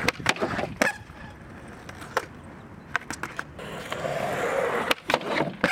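Skateboard wheels rolling on pavement with a series of sharp clacks from the board's deck and tail hitting the ground, as in tricks and landings.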